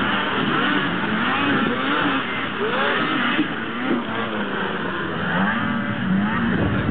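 Several racing snowmobile engines revving hard, their pitch rising and falling as the sleds accelerate and ease off around the track.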